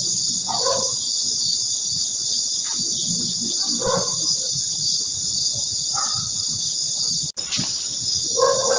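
Steady chorus of night insects such as crickets, with a few short wavering wail-like animal calls rising out of it, about half a second, four and six seconds in, and louder near the end.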